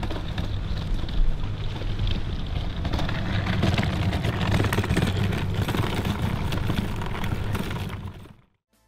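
Loud outdoor ambience on a waterfront promenade: a steady heavy low rumble with hiss over it, which cuts off about eight seconds in.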